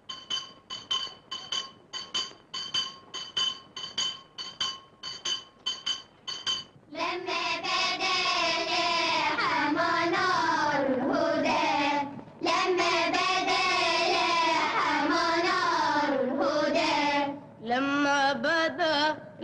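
Repeated metallic ringing strikes, about three a second, stop about seven seconds in. Then a boy sings an Arabic melody solo, with wavering, ornamented held notes and two short breaths.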